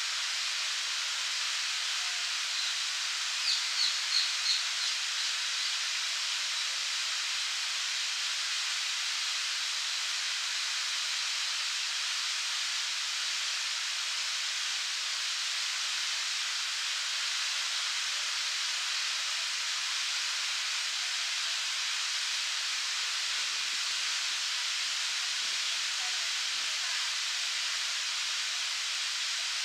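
Park fountain's water jets splashing steadily into the pond basin, a constant hiss of falling spray. About three and a half seconds in, a bird gives a quick run of about five high chirps.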